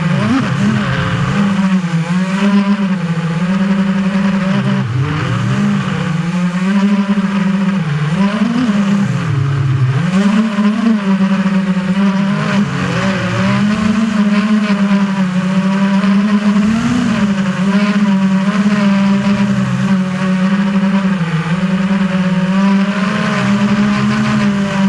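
FPV quadcopter's electric motors and propellers whining, recorded by a camera mounted on the drone itself. The pitch dips and rises again and again with the throttle, over a steady hiss.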